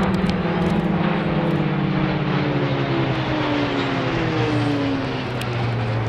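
Pilatus PC-9/A single-engine turboprop trainers flying a formation display pass overhead, their propeller drone falling steadily in pitch as they go by.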